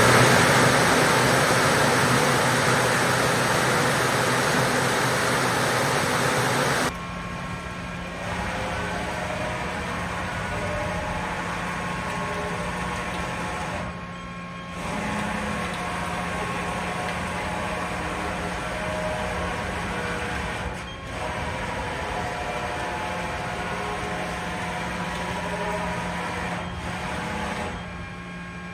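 Mori Seiki NL3000 CNC lathe spindle running up at about 2,500 RPM, a loud steady whirring rush. About seven seconds in it drops away suddenly, leaving a quieter, steady machine hum with a low drone.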